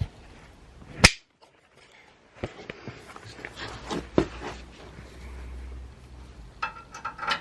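A sharp knock about a second in, then scattered light clicks and knocks of metal seat-mount parts being handled.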